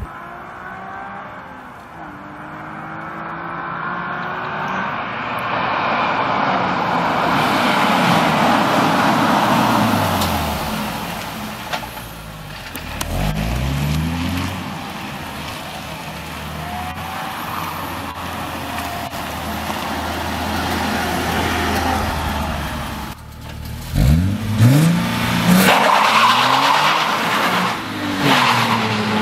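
Nissan 370Z's 3.7-litre V6 exhaust as the car drives and accelerates hard, its engine note rising in pitch twice, about halfway through and again near the end.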